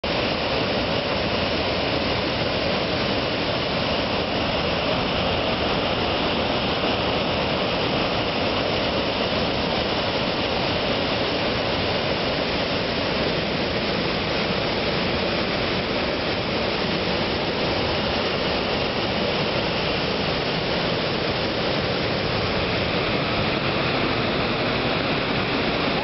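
Waterfall in flood, a broad curtain of muddy water pouring over a rock ledge into a swollen river: a steady, unbroken rush of water.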